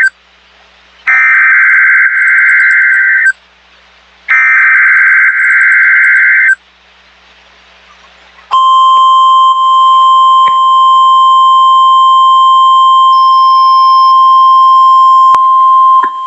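NOAA Weather Radio Emergency Alert System test: the last two of the three buzzy SAME digital header bursts, each about two seconds long with about a second between them. Then, about two seconds after the last burst, the steady 1050 Hz warning alarm tone starts and holds, the tone that switches on weather alert receivers.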